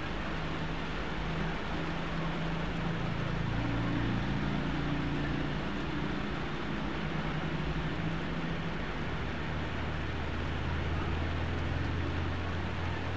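Heavy rain falling steadily on and around a vehicle, under the low hum of vehicle engines whose pitch drops to a deeper hum about two-thirds of the way through.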